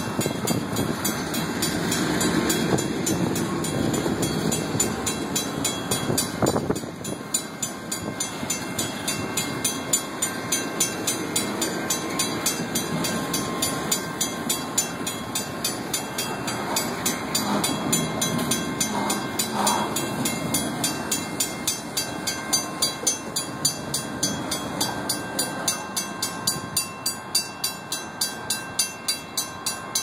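Loaded construction-and-debris railcars roll through a grade crossing, their wheels rumbling on the rails, loudest in the first several seconds. Over it, the crossing bell rings steadily, about two strikes a second.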